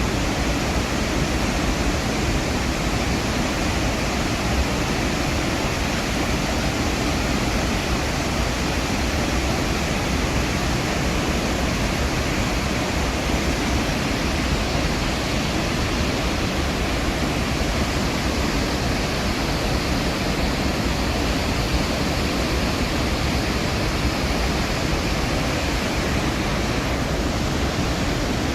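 Iguazu Falls' massive waterfall thundering at close range: a steady, dense rush of falling water with strong low rumble, unchanging throughout.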